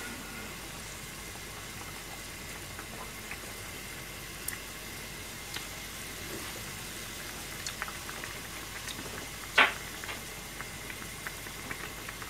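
A pan of vegetable and pork soup simmering, a steady bubbling, with scattered small clicks and one sharper tap about nine and a half seconds in.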